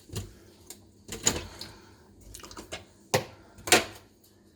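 Handful of separate sharp clicks and knocks from household objects being handled and set down, the two loudest about three seconds in and again half a second later.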